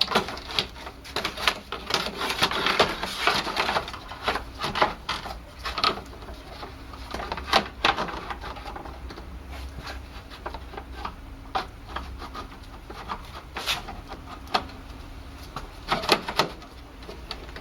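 Plastic fan shroud pieces being handled and pushed into place, their tabs engaging: irregular clicks, knocks and scraping of plastic.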